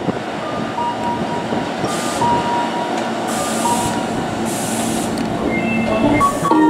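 Hankyu Kyoto Line electric train running on the track, heard from on board: a steady rumble of wheels and motors with a thin tone coming and going. A few short high hisses are heard along the way.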